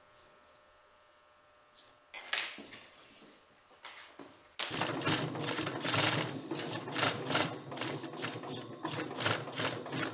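Low steady hum with one brief sharp noise about two seconds in; then, from about four and a half seconds in, an industrial sewing machine stitching thick leather for a boot upper, its needle strokes clattering about twice a second over the motor's run.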